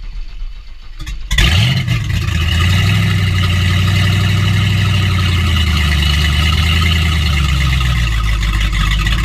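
An engine starts: a rougher, uneven sound for about the first second, then it catches, revs up briefly and settles into a steady low running note.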